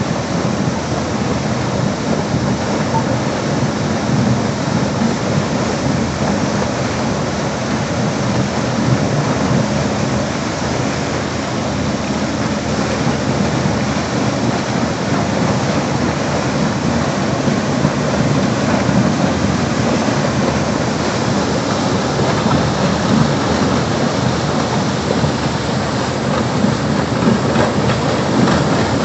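Cutter suction dredger working: a loud, steady rumbling rush of machinery and water, with no clear rhythm or pitch.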